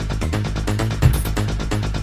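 Electronic dance music in the Valencian 'bakalao' style, with a steady driving beat over a stepping bass line.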